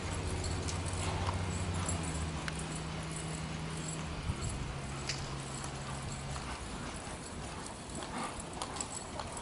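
Hoofbeats of a palomino mare loping on soft arena dirt, heard as scattered muffled strikes. A steady low hum sounds under them and stops about two-thirds of the way through.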